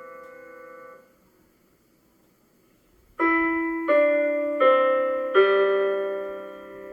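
Piano playing a slow bell-like phrase: a held sound fades and is released about a second in, then after a two-second pause four notes are struck in turn, a little under a second apart, the last one held and left to ring down.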